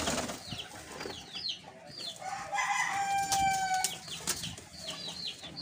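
Farmyard fowl: a rooster crows once, a held call about halfway through, over many short high chirps repeating throughout. A few sharp claps come from pigeons flapping their wings.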